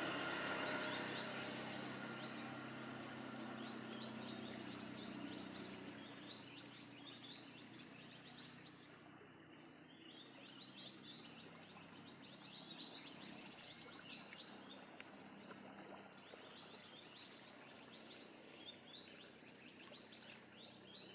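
Birds chirping in repeated bursts of rapid, high calls every few seconds, over a faint outdoor background; a passing vehicle's low hum fades out in the first few seconds.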